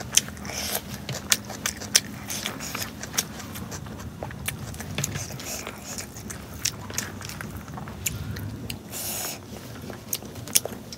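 Close-up eating sounds of rice and pork curry eaten by hand: chewing with wet lip smacks and sharp mouth clicks throughout, and fingers squishing the rice on the banana leaf.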